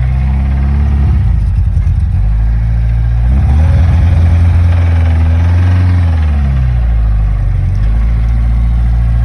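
Zhiguli's inline four-cylinder engine idling, blipped briefly near the start, then revved and held for about four seconds before dropping back to idle. It is running poorly, which the owner puts down to a faulty distributor.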